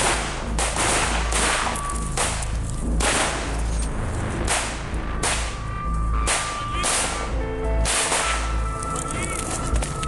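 Small-arms gunfire: single rifle shots at an irregular pace, about one to two a second, each with an echoing tail, over a low steady rumble.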